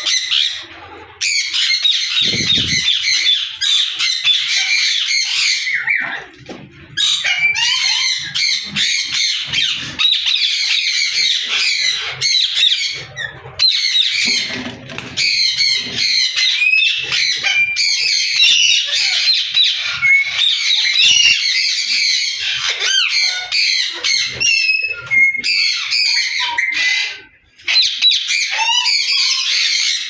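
A group of caged ringneck parakeets squawking and chattering, many shrill calls overlapping almost without pause, with a brief lull near the end.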